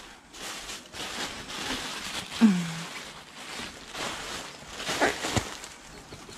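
Paper and plastic packaging rustling and crinkling as it is handled, in uneven swells. About two and a half seconds in comes a brief falling low sound, the loudest moment.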